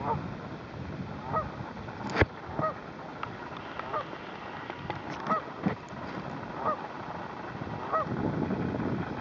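Geese honking repeatedly, a short call about once a second, with two sharp knocks, the louder one about two seconds in.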